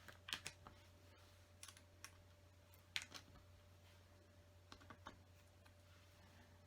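Faint clicks and taps of plastic LEGO pieces being handled and pressed onto a build: a scattered handful of sharp clicks, the loudest about three seconds in, over a faint steady hum.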